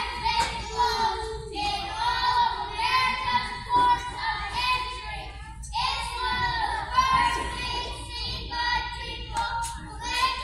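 A large children's choir singing together in a big hall, in sung phrases broken by short pauses for breath.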